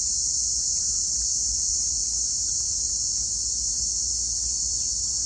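A steady, unbroken high-pitched insect chorus, with a faint low rumble beneath it.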